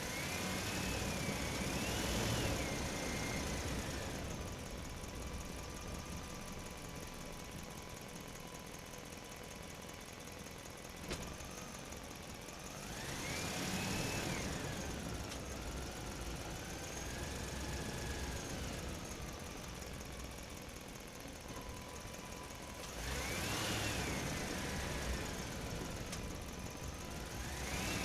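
Engine sound effect for cartoon construction vehicles: a steady running drone that revs up and settles back down three or four times, with a single click about a third of the way through.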